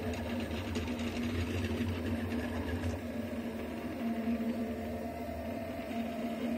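Delta 3D printer running a print: stepper motors whirring steadily as the hot end travels around the print, over a constant low hum.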